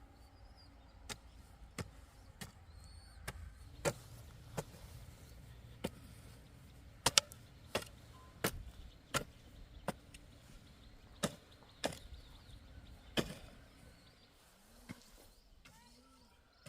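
An irregular series of sharp knocking strikes, roughly one a second, some much louder than others, over a faint low hum; they thin out near the end.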